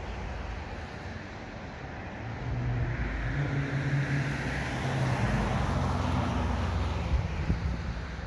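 A motor vehicle passing on the street: a low engine hum with tyre noise that swells a couple of seconds in and eases off near the end.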